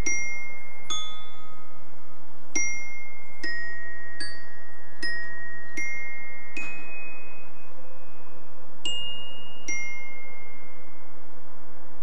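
Glockenspiel in a marching band's front ensemble playing a slow, exposed solo line of about ten single struck notes, each left to ring, with one longer-held note midway.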